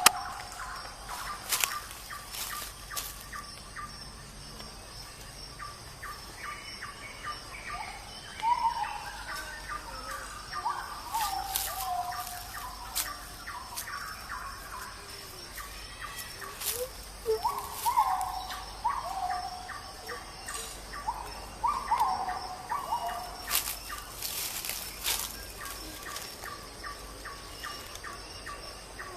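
Short bird-like calls, each falling quickly in pitch, repeated in loose groups every second or two, over a faint steady high insect drone, with scattered sharp taps or drips.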